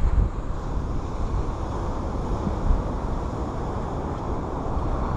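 Wind buffeting the microphone: a steady rough rumble with a stronger gust a little over two and a half seconds in.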